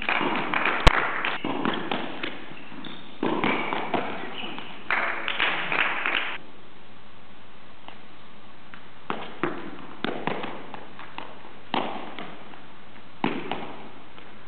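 Footbag net play on a hard court: scattered separate taps and thuds of the bag being kicked and of shoes landing, beginning about nine seconds in. Before that there is a loud sharp crack about a second in and short bursts of noise.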